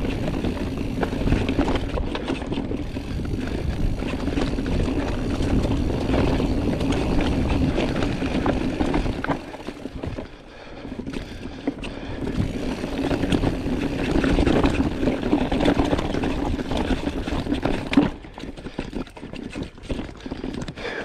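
Giant Trance mountain bike descending a dirt trail at speed: wind rushing over the microphone, knobby tyres rumbling and the bike rattling over the rough ground, with a steady hum under it. The noise eases briefly about halfway through, and a single sharp knock comes near the end, after which the rattle is quieter and choppier.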